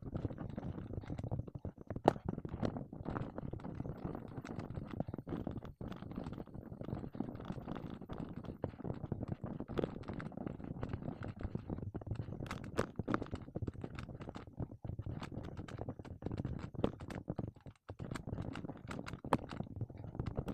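Plastic Rubik's Cube layers being turned in quick succession, a continuous clicking and rattling with irregular sharper snaps.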